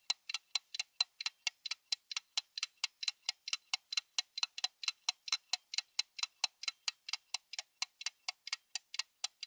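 Fast, even ticking sound effect, about four to five sharp ticks a second, cutting off suddenly at the end.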